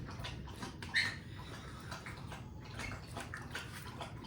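Eating sounds: chewing and small clicks and crackles of utensils and takeout containers, with a short high squeak about a second in.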